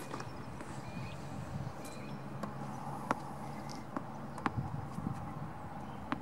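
A tennis racket hits the ball on a serve with a sharp pop at the very start, then a tennis ball is bounced on the court a few times, light separate taps, ready for the next serve.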